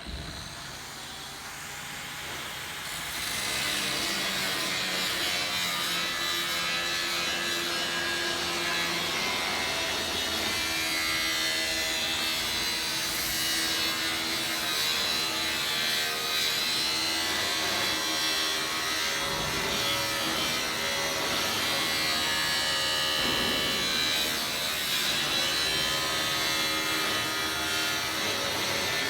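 Power cutting tool spinning up over the first few seconds, then cutting continuously, its motor pitch wavering as the load changes.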